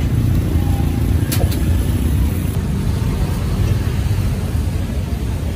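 Busy street traffic: a steady low rumble of passing cars and motorbikes, with a couple of short clicks about a second in.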